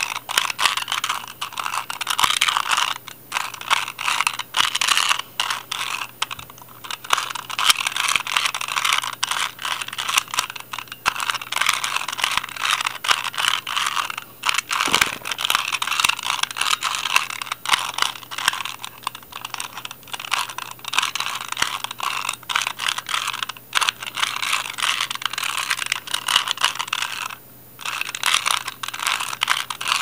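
2x2 Rubik's Cube turned rapidly by hand through a solve: quick, continuous plastic clicking and clacking of its layers, with a short break near the end.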